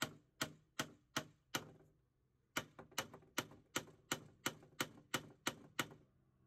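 Wooden mallet tapping a square hardwood pin into a glued komisen (drawbore) joint in Douglas fir: quick, even strikes at about three a second, five, then a pause of about a second, then ten more.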